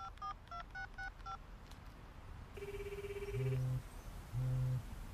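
Mobile phone keypad tones as a number is dialed, about six quick beeps in the first second and a half, then the ringing tone of the unanswered call through the earpiece. From about three seconds in, a low buzz comes in short pulses roughly once a second: a second mobile phone vibrating.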